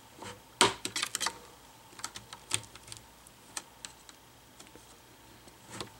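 Small plastic clicks and snaps of a laptop's front screen bezel being pried open along its bottom seam with a spudger: a quick cluster of clicks about half a second to a second and a half in, then scattered single clicks.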